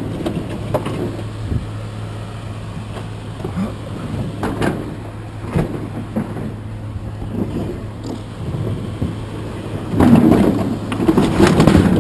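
Scrap appliances being handled and shifted: scattered knocks and clanks over a steady low engine hum. About ten seconds in there is a louder stretch of scraping and rattling.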